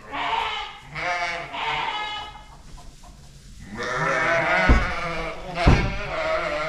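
Sheep (ewes) bleating: three separate calls, then several overlapping calls from the flock. Two low thumps about a second apart sound in the second half.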